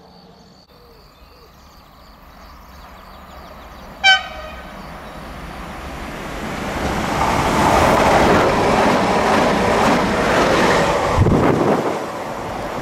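A train's horn gives one short, loud toot, then the train passes at speed with a growing rumble and clatter of wheels that eases off near the end.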